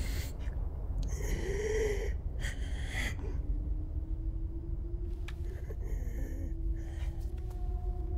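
A frightened woman's breathing, with a short whimpering gasp about a second in, over a low steady rumble.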